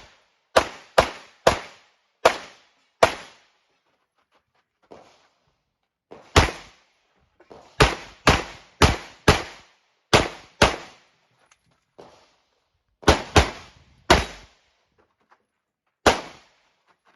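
Glock pistol shots fired in quick strings: about five shots in the first three seconds, a lone shot after a pause, a fast string of about seven, then four more close together and a last single shot near the end.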